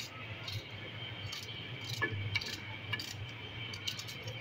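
Light, irregular clicks and clinks as onion is cut and the pieces drop into water in an aluminium pressure cooker, over a steady low hum.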